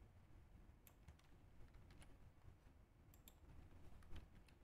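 Faint, irregular computer keyboard typing and clicks against quiet room tone.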